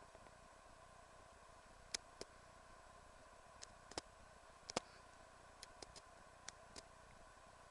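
Near silence: a faint steady hum with about a dozen light, irregular ticks scattered through it, the loudest about two and five seconds in.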